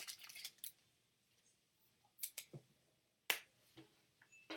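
Faint, scattered clicks and brief rustles of baseball cards being handled and flipped through, a few separate short sounds with quiet between.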